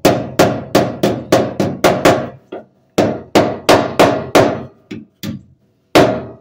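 A hammer lightly tapping a small sheet-steel patch panel into a cut-out hole in a car's floor pan. The patch is being driven in for a tight friction fit before welding. The taps come in quick runs of about three a second, each with a short metallic ring, with a brief pause partway through.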